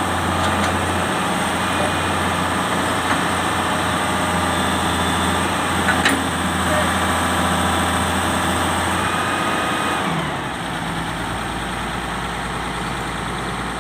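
Excavator's diesel engine running steadily, dropping to a lower speed about ten seconds in. A single sharp knock about six seconds in.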